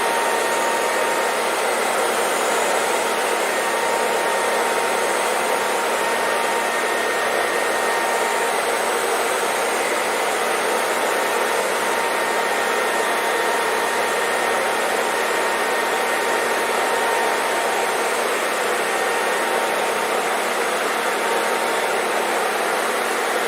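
Hair dryer running steadily: an even rushing hiss of air with a faint, steady motor whine.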